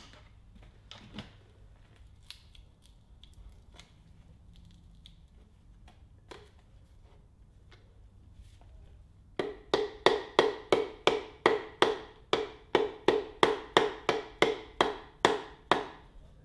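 Piston being tapped down through a ring compressor into a cylinder bore of a Ford 302 V8 block with a hammer. The taps come as a quick, even run of about twenty light metallic knocks, about three a second, each with a short ring. The run starts about nine seconds in, after a few faint clicks of handling.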